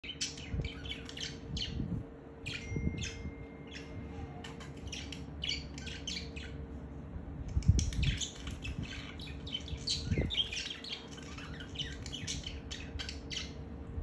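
Budgerigars chattering: a fast run of short chirps and squawks, thinner for a few seconds in the middle, from a courting pair touching beaks. A steady low hum runs underneath, with a few low thumps, the strongest just before the middle of the run's second half.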